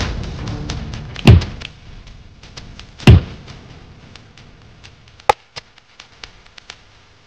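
Two heavy, deep thuds a couple of seconds apart, then a single sharp crack of a wooden cricket bat striking the ball.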